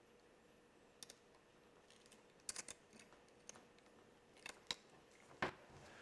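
Faint metallic clicks and snips of lineman's pliers crimping a small metal alligator clip onto a wire, coming in a few short clusters.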